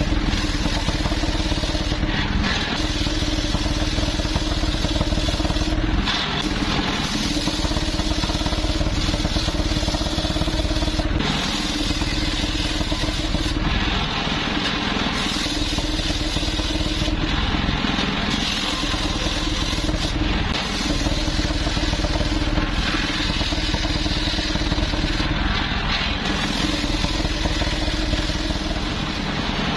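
Engine-driven homemade circular sawmill running steadily while its large circular blade rips a log lengthwise. Under the steady engine note, the high cutting noise thins out briefly several times.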